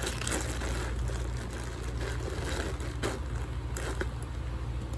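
Clear plastic crinkling as it is pushed into a leather handbag to pad it out, fading after about a second into a few faint rustles and ticks, over a steady low hum.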